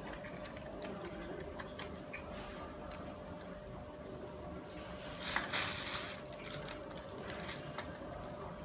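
Hands working the soil and root ball of a mini bonsai over a plastic bag: soil crumbling, plastic rustling and small scattered clicks, with a brief louder rustle about five seconds in.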